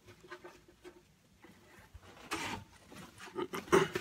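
Handling noise from a djembe rope-tuning tool and its small clamp: a few light clicks, a short rustling scrape a little past halfway, then a louder knock near the end as a part is set down on a hide drumhead.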